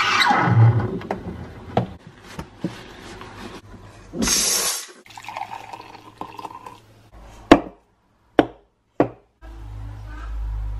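Espresso machine steam wand hissing into milk in a stainless jug, dying away within the first second, then a short burst of hiss about four seconds in. Liquid is then poured into a ceramic mug, with a few sharp knocks against the counter and a steady low hum building near the end.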